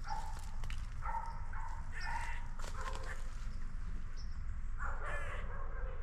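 A crow cawing about five times in a loose series of harsh calls, the last one near the end longer and buzzier.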